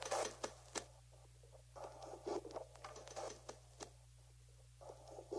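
Faint, scattered clicks and crackles, coming irregularly in small clusters, over a low steady hum.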